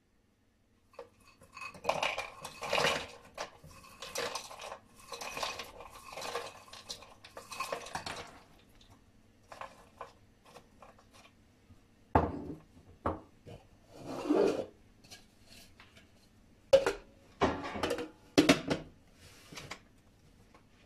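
Walnuts tipped into the plastic bowl of an electric grinder, a rattling clatter for several seconds, then a few separate plastic knocks and clicks as the bowl and lid are handled and fitted onto the base.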